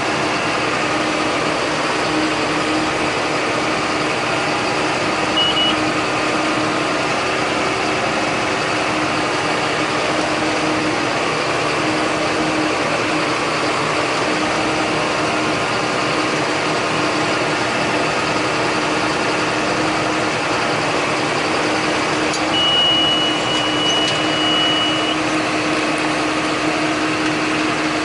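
John Deere 8100 tractor engine running steadily at constant speed. A short high beep sounds about five seconds in and a longer one near the end.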